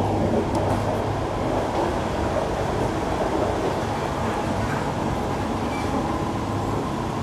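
Siemens C651 metro train running between stations, heard from inside the car: a steady rumble of wheels on rail with a low motor hum, easing slightly toward the end.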